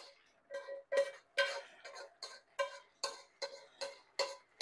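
A utensil knocking repeatedly against a dark cooking pot as cooked noodles are worked out of it into a pan. The knocks come about three a second, each one ringing briefly like a bell.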